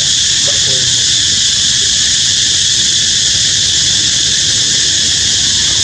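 Loud, steady insect chorus: an unbroken high-pitched hiss. A few faint short squeaky calls come about half a second in.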